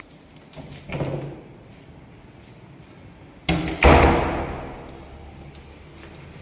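A short swelling sound about a second in, then two heavy thuds close together near the middle, the second the loudest, ringing out for over a second.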